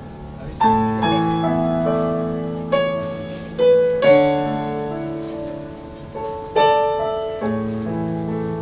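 Piano chords played on a keyboard in an instrumental passage with no singing. Chords are struck about seven times, each left to ring and fade.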